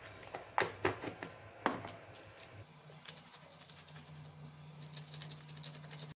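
A stone pestle (ulekan) and stone mortar (cobek) holding dry-toasted spices, shallots, garlic and chilies being handled. A few sharp knocks come in the first two seconds, then light scraping and ticking as the pestle starts working the ingredients.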